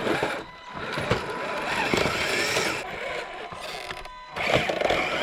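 RC4WD Trailfinder 2 scale crawler's drivetrain working under load: the small electric motor and gears whine in uneven spurts, with clicks and scrapes as it crawls over the trail.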